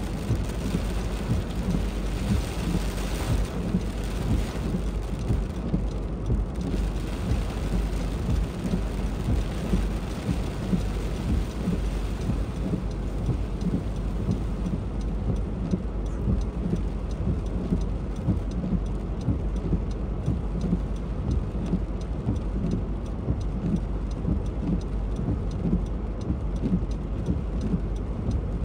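Heavy thunderstorm rain falling steadily over a constant low rumble. The higher hiss thins after the first few seconds, and single drop ticks stand out more in the second half.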